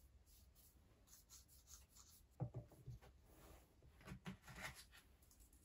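Paper wrapping being peeled and pulled off a new iPhone 15 Pro Max, soft paper rustling and scraping. There are a few light knocks a little before halfway as the phone and box are handled.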